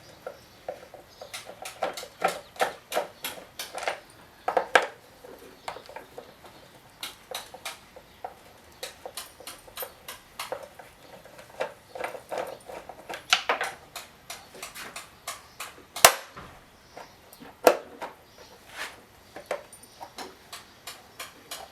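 Irregular clicks and knocks of hand tools against the top cover of a Homelite chainsaw as it is unfastened and worked loose, coming in quick runs, with one sharper knock about sixteen seconds in.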